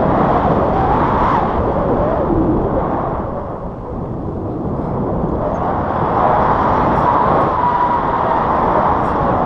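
Airflow of a paraglider's flight rushing over a pole-mounted action camera's microphone: a steady loud rush that dips briefly about four seconds in.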